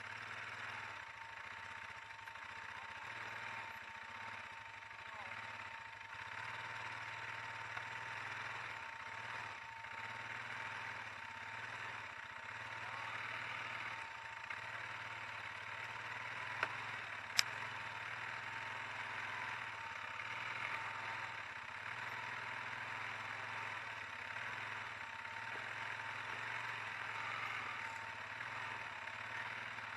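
ATV engine running steadily at low revs, heard close up from the handlebars, with two short sharp clicks a little past halfway.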